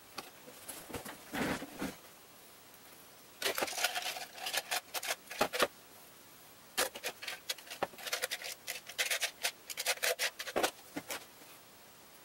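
Pencil scratching across paper in quick hatching strokes. The strokes come in bursts of one to a few seconds with short pauses between.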